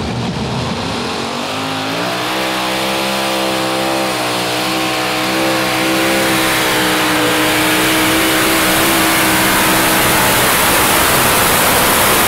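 Multi-engine modified pulling tractor at full throttle, launching and pulling the sled down the track. Its engines climb in pitch about two seconds in, then hold a steady high note while the sound grows louder toward the end.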